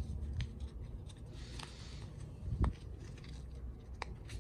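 Hands handling a coiled USB-C charging cable and cardboard packaging: soft rustling with a few light clicks and a dull knock about two and a half seconds in.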